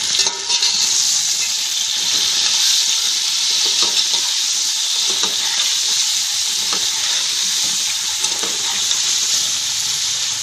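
Chicken pieces sizzling steadily as they fry in hot oil over medium heat, with scattered small pops and crackles.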